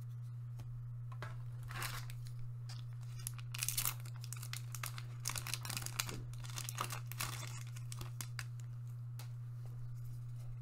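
Foil wrapper of a One Piece TCG booster pack crinkling and tearing as it is opened by hand, in irregular short bursts from about 2 to 7.5 seconds in.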